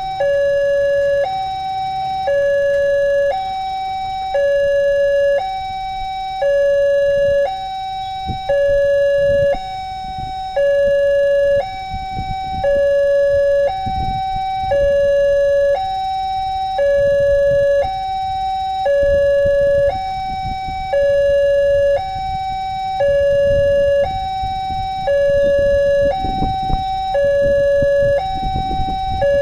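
Railway level-crossing warning siren sounding a two-tone alarm, a lower and a higher tone taking turns about once a second, warning that a train is approaching.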